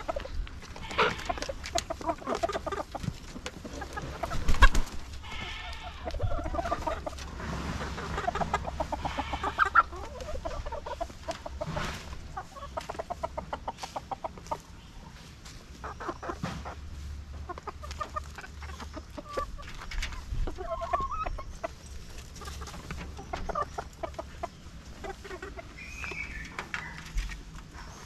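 Native chickens clucking in many short, scattered calls as they feed on hand-held wet grain mash, with short sharp clicks among them.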